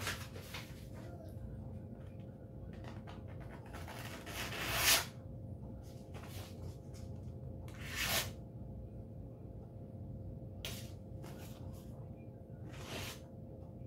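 Blade of a Parahatchet FS bush hatchet drawn through a sheet of printer paper as a sharpness test. There are three strokes of paper noise, the longest building up for about a second and peaking around five seconds in, and shorter ones near eight and thirteen seconds, with faint paper scratches between. The edge snags rather than slicing cleanly: not that sharp.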